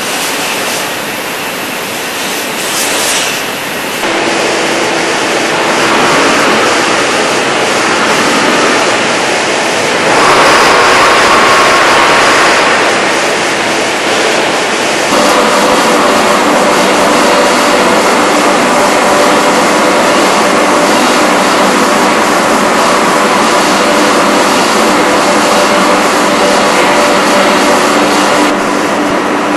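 Loud, steady factory-floor noise from cathode ray tube production-line machinery and ventilation, with a few faint steady tones in it. The mix changes abruptly several times as the shot moves between different production halls.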